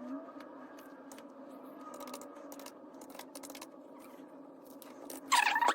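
Scattered light clicks and scrapes of hand work at a desk, as amounts are tapped into a calculator and paper is handled, over a steady low hum. A brief, louder tone sounds near the end.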